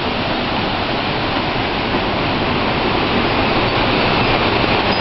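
Strong wind from a nearby tornado rushing through trees, with rain, a loud steady rush that slowly builds.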